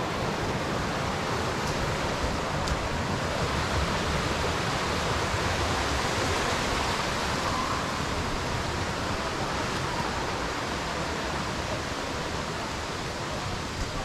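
A rocky stream rushing over boulders: a steady noise of running water that eases off slightly near the end.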